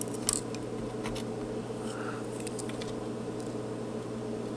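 Soldering on a TV power board: a few faint clicks and ticks as the soldering iron and solder wire touch the pins, over a steady low hum.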